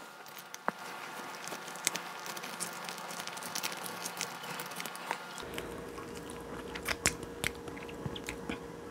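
Instant stir-fried ramyeon noodles being eaten, heard as scattered light clicks and soft biting and chewing sounds.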